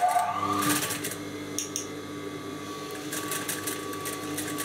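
Industrial sewing machine running steadily, stitching across a fabric strip to tack the elastic inside it so it cannot slip out.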